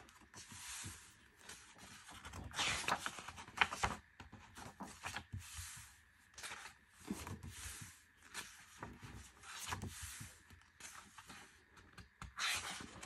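Pages of a K-pop album's photobook turned by hand: several separate paper swishes and rustles as pages flip and hands brush over them.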